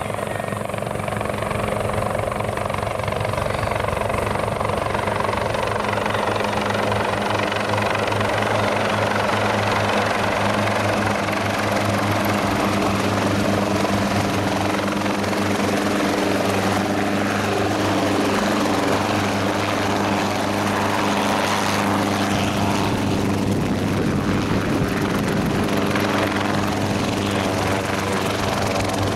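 Schweizer 300C light piston helicopter coming in and descending to a low hover close by. Its rotor and engine make a continuous drone that grows a little louder in the first few seconds and then holds steady.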